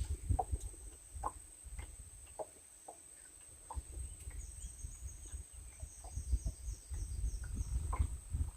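Outdoor riverside ambience: a steady high insect whine throughout, a bird's run of about eight quick falling chirps in the middle, scattered short calls or knocks, and a low rumble that grows toward the end.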